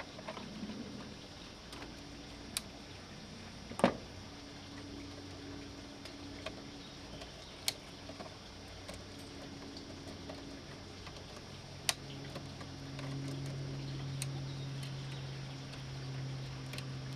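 Scattered small clicks and taps of hands and a screwdriver working wires at circuit-breaker terminal screws in a metal electrical panel, the sharpest about four seconds in. A low steady hum comes in about two-thirds of the way through.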